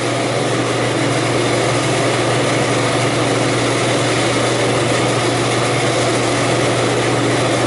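Walk-in cooler evaporator fan running: a steady whoosh of moving air over a constant low motor hum.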